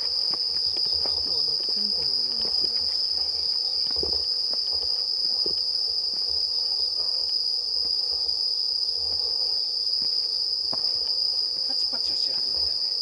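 Chorus of night-singing insects: a steady, high-pitched trill with no break, with scattered faint clicks and taps.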